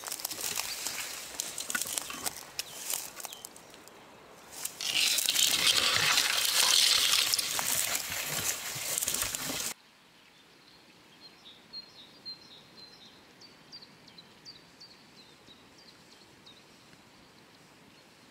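Crinkling, rustling handling noise on the microphone, louder for its last five seconds, cuts off suddenly. Then a quiet outdoor background with faint, short bird chirps.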